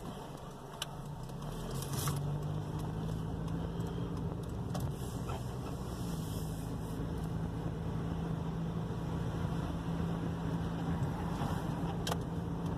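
Engine and road noise heard from inside the cabin of a 2001 Toyota Corolla. A low engine drone comes up about a second and a half in as the car gathers speed, then holds steady while cruising.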